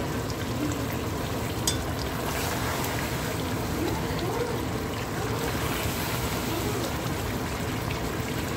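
Mango talkari bubbling and sizzling in an aluminum pot on high heat as the last of its water boils off, stirred with a metal spoon. There is a sharp clink of the spoon on the pot just under two seconds in.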